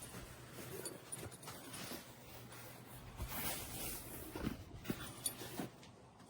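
Rustling and small knocks as a fabric tactical backpack is handled, with irregular swishes and clicks that come thickest in the second half.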